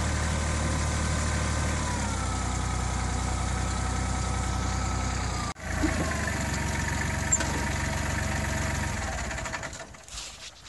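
Kubota compact tractor's diesel engine running steadily. Its pitch steps down about two seconds in, and there is a brief break about halfway. The engine dies away shortly before the end, with a single sharp click near the middle.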